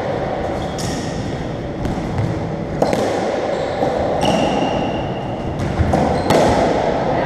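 Racketball rally: the hollow rubber ball cracking off racquet strings and the court walls, a handful of sharp hits about one to two seconds apart, each ringing on in the echo of the enclosed squash court.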